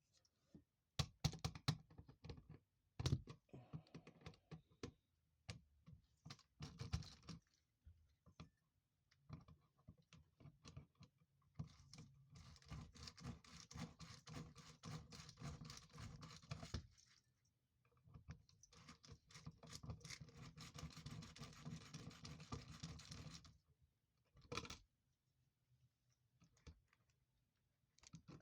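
Small hand-tool clicking on an electrical outlet: scattered sharp clicks and knocks, then two long runs of rapid clicking several seconds each, as a mechanical screwdriver is turned on the outlet's screws.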